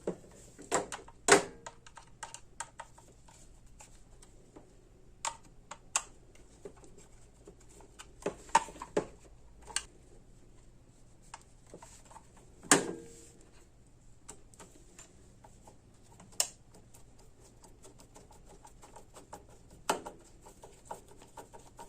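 Irregular light clicks and taps of small screws and a screwdriver on a metal power-strip housing as it is screwed back together. There are sharper knocks about a second in and about halfway through.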